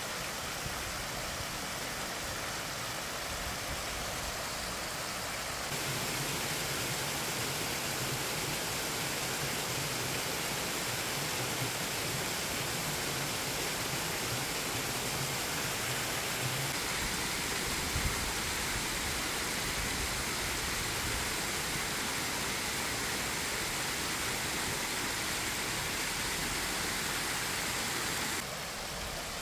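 Shallow stream water rushing steadily over rocks and a low weir, a little louder from about six seconds in.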